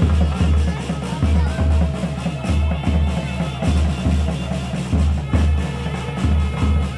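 Festival drumming with a deep bass drum beaten in pairs, about one pair every second and a quarter, under lighter percussion and music.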